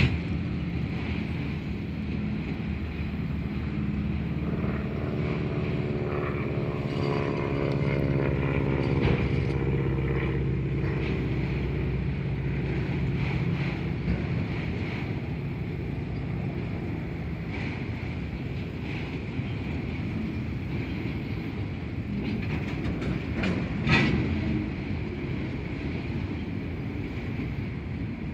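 Union Pacific freight train's autorack and covered hopper cars rolling steadily past on the track, with a continuous rumble and rattle of wheels. In the first half a droning engine hum swells and fades. A single sharp clank is heard near the end.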